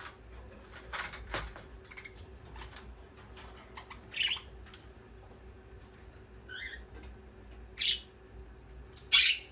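Pet parakeets calling in short, sharp, scattered calls, with quieter chirps in between; the loudest call comes near the end.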